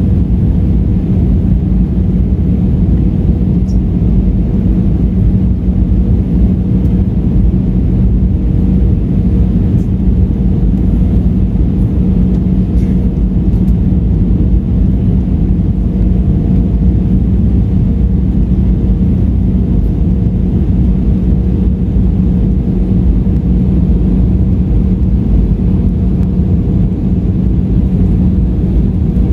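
Airbus A320 cabin noise on final approach, heard from a window seat by the wing: steady engine and airflow rumble with a constant low hum.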